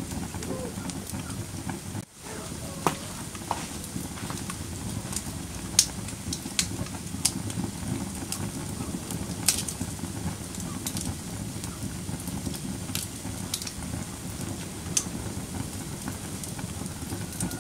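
Wood fire crackling, a steady low rumble with sharp pops and snaps every second or two. The sound briefly drops out about two seconds in.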